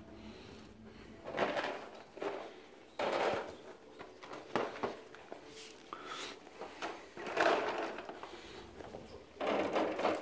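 Rat food pellets being dropped by hand onto the wire-mesh lids of rat cages, and the cages being handled. Irregular clatters and knocks come in short bursts every second or two.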